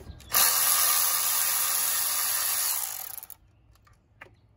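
Milwaukee cordless electric ratchet running steadily for about three seconds as it spins a terminal nut off the alternator, starting about half a second in and cutting off suddenly.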